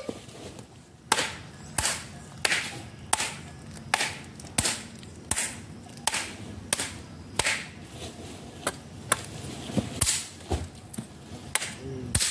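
A hand tool striking over and over in a steady rhythm, about three sharp chops every two seconds.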